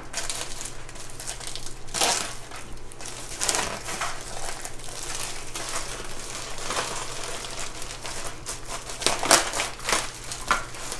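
A white plastic poly mailer crinkling and rustling as it is handled and opened by hand, in a string of irregular crackly strokes. The loudest come about two seconds in and again near the end.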